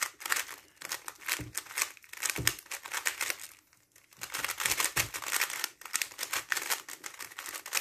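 GAN XS 3x3 speedcube being turned fast: a dense run of plastic clicks and clacks as the layers snap round, stopping briefly about four seconds in, then going on again.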